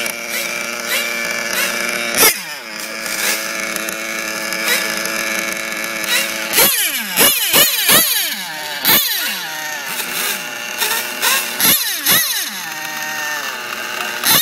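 Small nitro (glow-fuel) two-stroke engine of an RC drag car idling, with sharp throttle blips that rise and drop straight back: one about two seconds in, then a quick run of revs in the second half.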